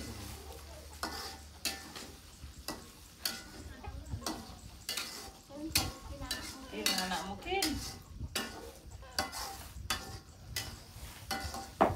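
Metal spatula scraping and knocking against a frying pan as food is stirred, with food sizzling in the pan. The knocks and scrapes come irregularly, about once or twice a second.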